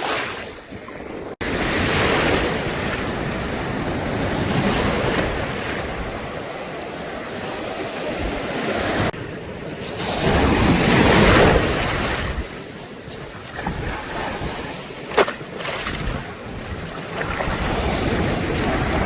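Ocean surf breaking and washing in, rising and falling in surges, with wind buffeting the microphone. A brief sharp click about fifteen seconds in.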